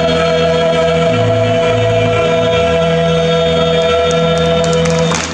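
Mixed choir holding a long final chord over electric keyboard accompaniment, the keyboard's bass notes moving beneath it. The chord stops just before the end and clapping breaks out.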